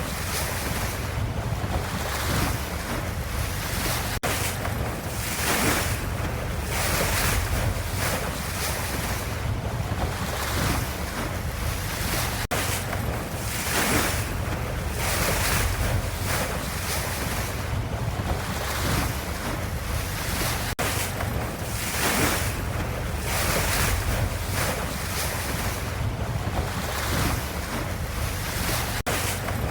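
Ocean waves washing in a continuous rush over a low rumble, swelling and easing roughly once a second. The sound cuts out very briefly about every eight seconds.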